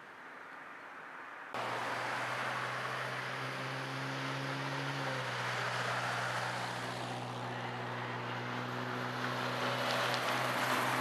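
An engine running steadily with a low hum over a steady hiss, coming in suddenly about a second and a half in; its pitch drops slightly about five seconds in.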